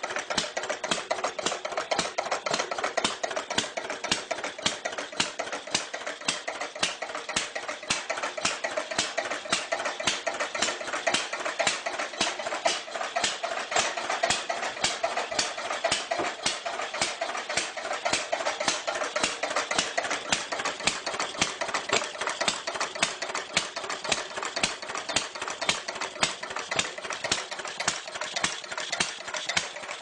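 Old car engine idling steadily, its even running note laced with a fast, regular clatter of ticks.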